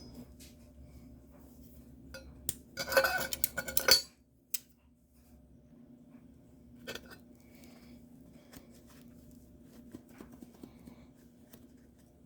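Metal clinking and rattling of tools being handled, with a dense clatter of metal on metal lasting about a second, about three seconds in, then occasional single clicks.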